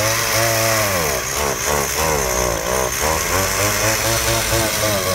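Petrol two-stroke chainsaw running without cutting, its engine pitch rising and falling again and again as the throttle is blipped.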